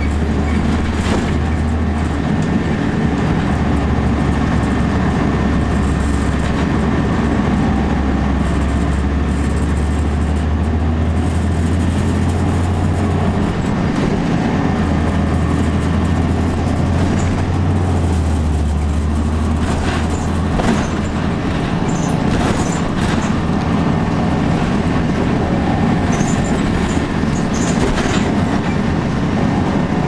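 Interior ride noise of a 2002 Blue Bird CS transit bus under way: the Cummins ISC inline-six diesel's low drone, stepping in pitch several times, over road noise. Scattered rattles and clicks come in the second half.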